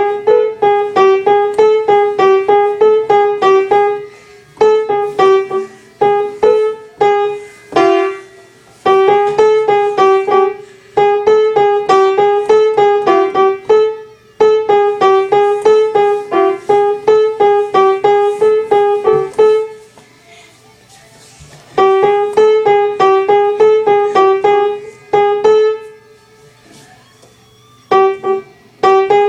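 Piano played in quick, short, evenly struck notes, about four to five a second, wavering between two close pitches. It is a short ringtone phrase, repeated several times with brief pauses between.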